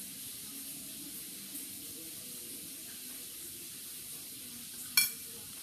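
A steady hiss with a faint low murmur, and one sharp click about five seconds in.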